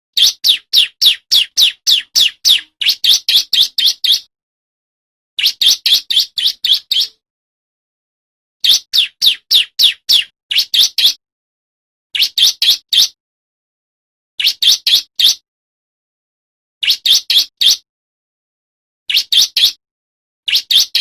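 Male bar-winged prinia (ciblek) singing loudly: phrases of rapid, sharp, high chirping notes, about six a second, each phrase lasting one to a few seconds with short silent pauses between them, eight phrases in all.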